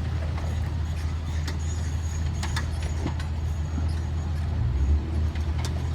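Vehicle driving, a steady low engine and road drone with scattered clicks and rattles.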